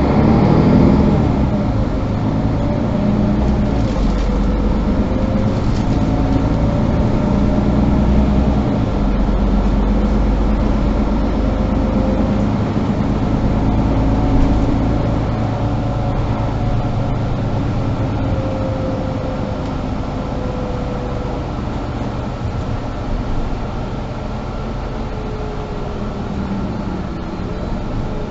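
Mercedes-Benz Citaro G articulated bus heard from inside the passenger cabin while driving. The diesel engine and drivetrain run steadily, with a whining tone that slowly rises and falls with speed. The deep rumble eases about halfway through.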